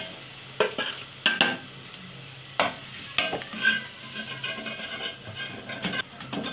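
Flat metal spatula scraping and knocking against the bottom of a metal pot as browned fried onions are scooped out of hot oil, a sharp stroke every half second to a second, with the oil sizzling softly underneath.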